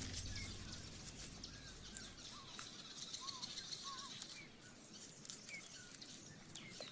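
Wild birds giving short chirps and small arching call notes over a faint outdoor background hiss. A low steady hum fades out in the first two seconds.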